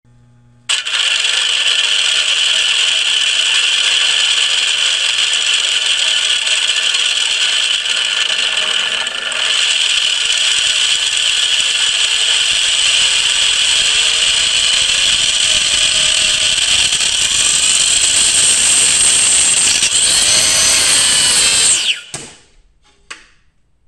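A train of five 3D-printed plastic gears driven by an electric motor starts suddenly and runs at high speed with a loud, steady, high-pitched whine of many tones. Near the end the power cuts and the whine falls in pitch and dies away within about a second.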